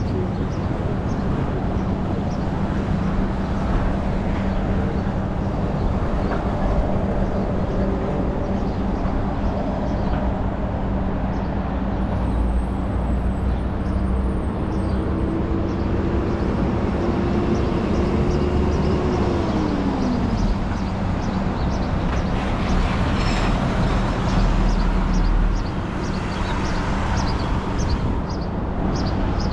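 City street traffic: vehicle engines running and passing, over a steady low hum. One engine note holds and then falls away about twenty seconds in.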